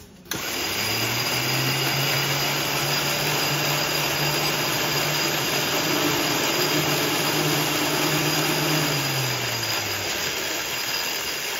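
Sectioned Rolls-Royce Merlin 25 V12 aero engine, cylinder heads off, being turned over from its control box for a demonstration: a mechanical whir that starts abruptly with a hum rising to a steady pitch. The hum slows and drops away about nine to ten seconds in.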